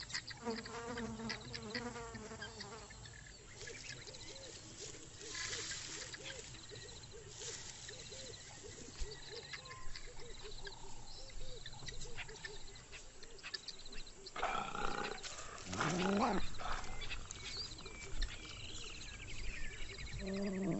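Wild animal sounds in the bush. A low call with a wavering pitch comes near the start, followed by a long run of short, repeated calls over a faint insect-like pulsing, and two louder calls about 15 and 16 seconds in.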